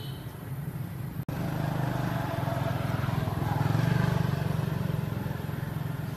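A motor vehicle engine running steadily. It grows louder to a peak about four seconds in, then eases off.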